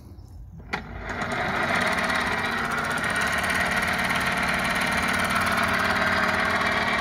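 Converted electric outboard, a 24-volt electric go-kart motor turning an old outboard's drive shaft and lower unit, clicks on about a second in, spins up within about a second and then runs steadily with a loud hum of several even tones. It sounds loud because the lower unit is running out of the water.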